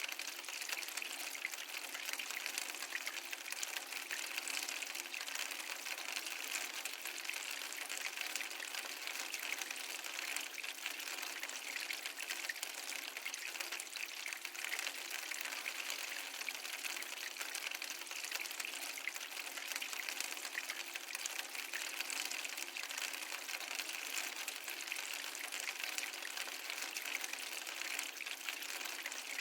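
Flowing water, running steadily in an even, bright rush with no low rumble.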